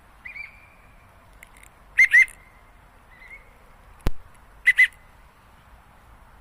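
Short two-note whistles, each note rising and falling; a loud pair about two seconds in and another just before five seconds, with fainter ones near the start and about three seconds in. A single sharp click sounds just after four seconds.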